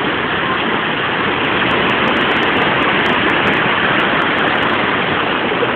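Steady rush of sea surf, small waves breaking and washing in the shallows, heard through a camera phone's microphone.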